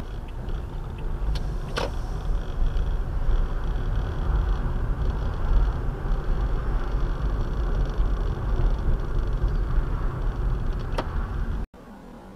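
Steady low rumble of engine and tyres inside a moving car, picked up by a windscreen-mounted dashcam, with a few sharp clicks near the start and one near the end. Shortly before the end it cuts abruptly to a quieter, even hiss.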